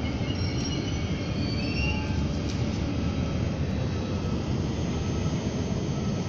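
Double-deck electric regional train passing with a steady low rumble of wheels on rail. Thin, high wheel squeals come and go during the first couple of seconds.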